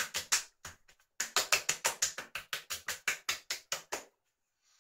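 Both palms slapping the cheeks in quick pats, about five a second, splashing Florida water cologne onto a freshly shaved face. The pats break off briefly just after the start and stop about four seconds in.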